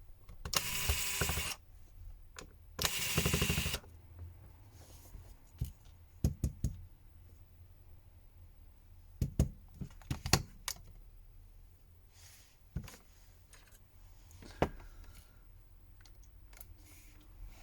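Small hand tools working on the opened phone: two noisy bursts about a second long near the start, then scattered light clicks and taps of tools and small parts.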